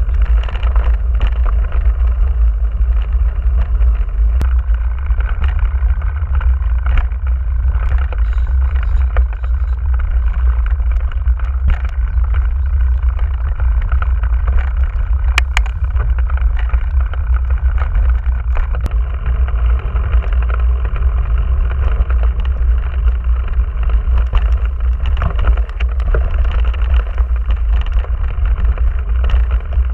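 Steady low rumble of a Giant Trance 27.5 mountain bike riding over dirt, mud and grass tracks, picked up through a handlebar-mounted camera, with scattered small clicks and knocks from bumps in the trail.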